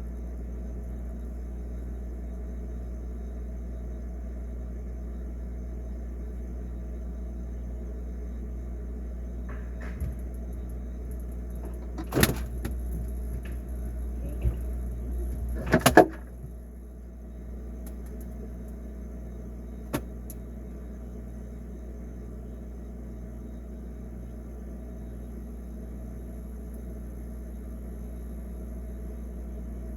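Steady low refrigerator hum, with a few sharp knocks and clunks in the middle, the loudest two about 12 and 16 seconds in.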